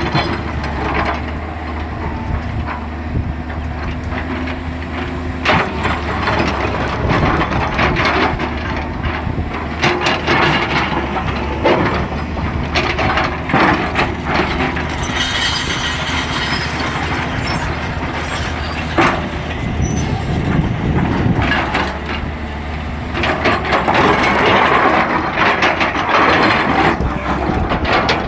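Excavator's diesel engine running steadily under repeated clatter, knocks and scraping of stones being moved and dropped.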